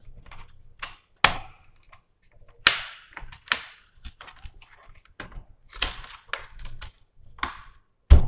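Plastic bottom cover panel of an HP Pavilion laptop being pressed down by hand, its clips snapping into place as a series of sharp clicks at uneven intervals, the loudest near the end, with light rubbing of hands on the plastic between them. The snaps mean the cover is latching shut.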